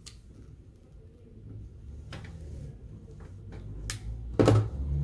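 A knife cutting into the inner insulation of a thick coaxial cable: a few light clicks and a short scrape.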